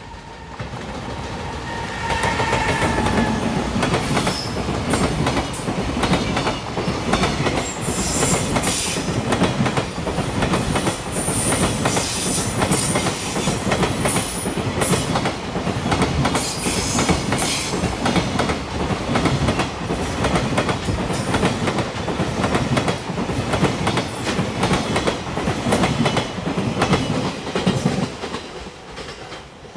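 A freight train behind an EF210 'Momotaro' electric locomotive passing close by at a level crossing: a steady run of wagon wheels clattering over the rail joints, building up over the first couple of seconds and fading near the end. High wheel squeals come and go through the middle of the passage.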